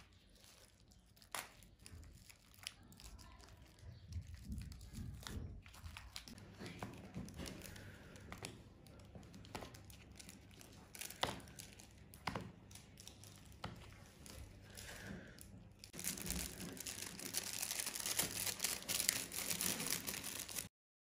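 Clear plastic wrap crinkling and tearing as it is pulled off a round plastic compartment box, with scattered sharp clicks from the box's plastic lids. The rustling grows louder and denser for the last few seconds, then cuts off suddenly.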